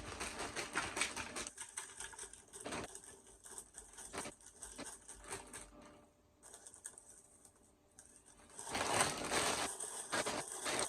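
Irregular clicks and crunching from a taco salad being handled close to the microphone. They drop away for about two seconds past the middle and are loudest a little before the end.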